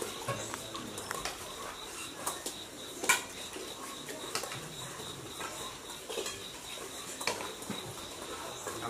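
Spoons and a serving ladle clinking against stainless steel bowls, plates and a pot as a meal is served and eaten, in scattered irregular clinks, the loudest about three seconds in.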